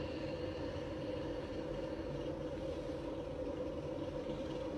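Steady, unbroken hum of room noise with a few faint held tones.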